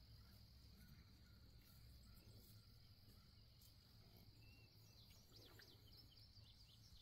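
Near silence: a faint, steady high-pitched insect drone over the open pasture, joined from about five seconds in by quick faint chirps.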